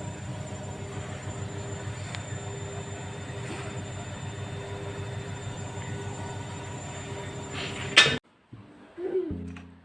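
A steady low mechanical rumble with a faint steady hum over it, ending in a sharp click about eight seconds in; after a brief silence, acoustic guitar music begins near the end.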